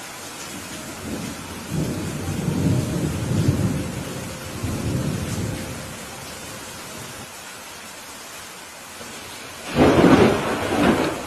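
Steady rain with a thunderstorm: a low rumble of thunder lasting several seconds, then a louder, sharper thunderclap near the end.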